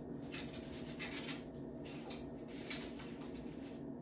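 Soft, faint rustling and rubbing of ripe bananas being peeled by hand, over a steady low hum.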